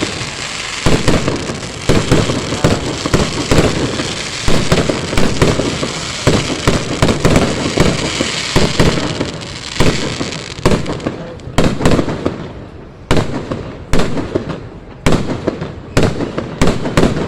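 Fireworks going off: a dense run of overlapping bangs and crackling for the first ten seconds or so, then thinning out to separate sharp bangs, about one or two a second.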